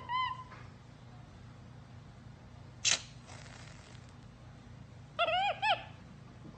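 Capuchin monkey chirping in a quick run of rising-and-falling calls, then a short hiss of a whipped-cream can squirting about three seconds in, and another run of about five chirps a little after five seconds in.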